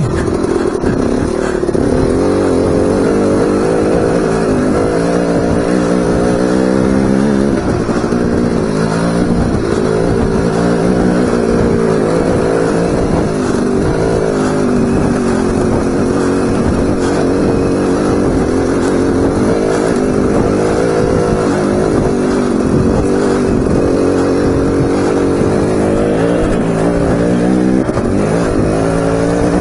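Dirt bike engine with a freshly rebuilt top end, still in its break-in hours, running continuously as the bike climbs a rocky trail. Its pitch rises and falls with the throttle.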